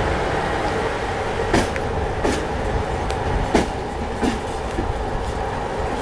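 Train running on the rails with a steady rumble and hum, its wheels clicking over rail joints: five sharp clicks from about one and a half seconds in, the first four in pairs.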